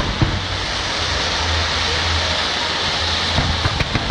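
Fireworks crackling and hissing in a dense, continuous stream as sparkling comets rise, with a few sharp pops near the start and in the last second.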